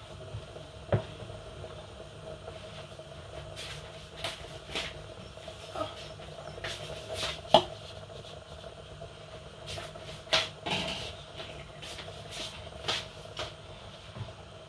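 Irregular clicks and knocks of kitchen utensils and containers being handled while eba is made from garri, over a faint steady hum.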